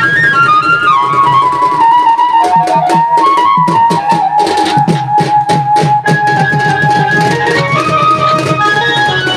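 Loud traditional Indian folk music: a reedy wind instrument plays a stepping melody of held notes over drums, with a fast, dense run of drumbeats through the middle.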